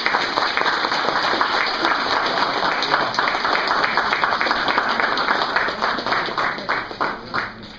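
Audience applauding, a loud dense patter of many hands clapping that dies away near the end.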